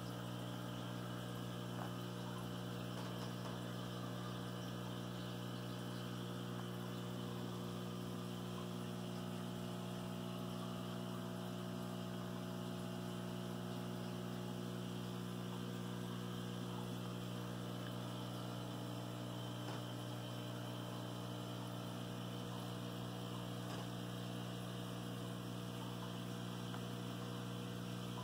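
Aquarium equipment running: a steady, unchanging electrical hum with a faint hiss over it.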